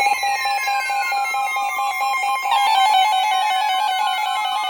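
Emergency Alert System attention signal: a steady two-tone alarm held throughout, with thin tones sliding steadily down in pitch across it.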